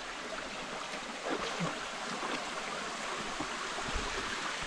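Shallow creek water running over rocks: a steady, even rushing hiss.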